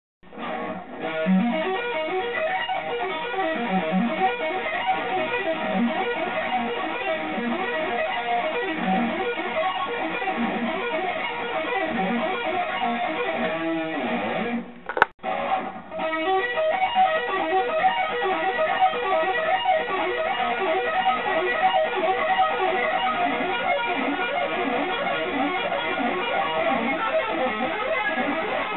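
Squier Bullet Stratocaster HH electric guitar playing fast, wide-interval string-skipping arpeggio runs. There are two passages, split by a brief break with a click about fifteen seconds in.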